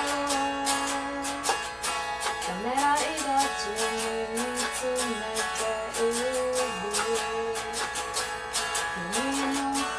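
A woman singing and strumming an electric guitar: a quick, even strum of about four to five strokes a second under a slow sung melody with long held notes.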